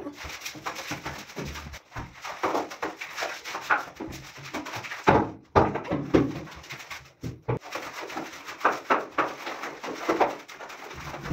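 A long-handled cleaning tool scrubbing and scraping over wet ceramic floor tiles in irregular short strokes, with louder strokes about five seconds in and near the end.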